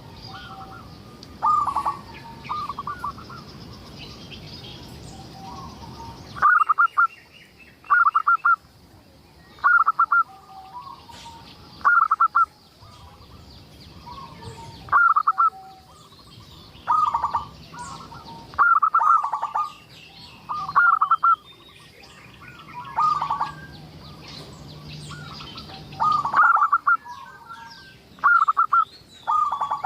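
Zebra dove cooing: short phrases of quick, stuttering coos, repeated about every two seconds, with fainter high chirps of small birds behind.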